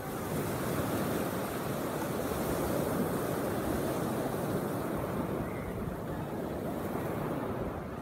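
Small sea waves breaking and washing up a sandy beach: a steady rush of surf that swells soon after the start and eases off in the second half.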